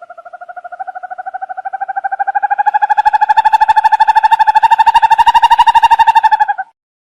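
An owl giving a long, rapid trill of about a dozen notes a second, swelling louder and rising slightly in pitch, then cutting off abruptly near the end.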